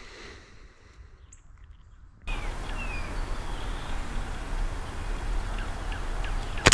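Outdoor ambience with a few faint bird chirps, then near the end a single sharp crack of a pellet rifle firing.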